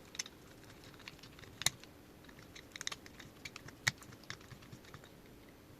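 Small, irregular clicks and taps as an M5 button-head cap screw is tightened by hand into 3D-printed PLA parts, with two sharper clicks about a second and a half and four seconds in.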